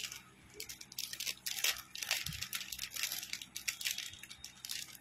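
Clear plastic jewellery packet crinkling and rustling as it is handled and opened, in a run of quick, irregular crackles.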